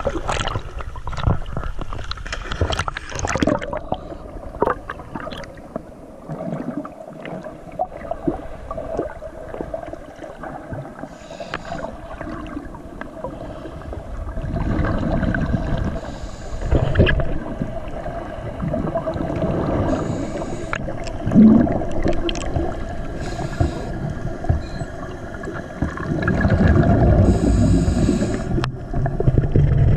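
Scuba diving sounds heard through an underwater camera housing: water splashing as the camera goes under, then a diver's exhaled regulator bubbles rushing out in bursts every few seconds. A steady hum runs underneath.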